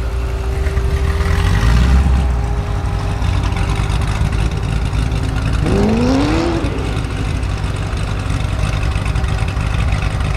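Chevrolet Corvette C7's V8 through a Capristo exhaust, running at low revs with a deep rumble and swelling briefly about two seconds in. A short rising whine sounds about six seconds in.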